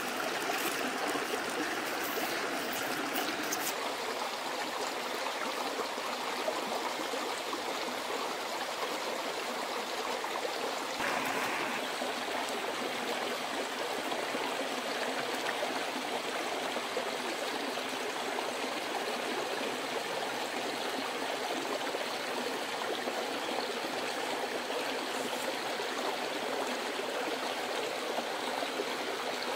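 Shallow stream running over rocks: a steady rush and trickle of water.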